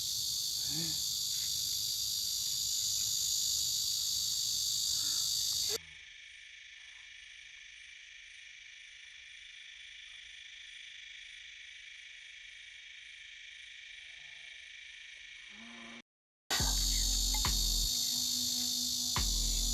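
Steady high-pitched chorus of insects, such as crickets, droning on without a break. About six seconds in it cuts abruptly to a much fainter, thinner version of the same sound, drops out for a moment around sixteen seconds, and then returns at full loudness.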